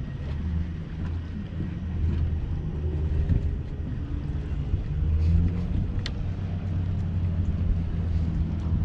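Low, steady engine rumble with a faint hum.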